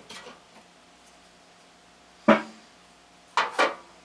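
Metal knocks and clinks from handling a Jeep CJ7 heater blower motor and its squirrel-cage fan wheel as the wheel is taken off the shaft: one knock that rings briefly, a little over two seconds in, then two quick clinks about a second later.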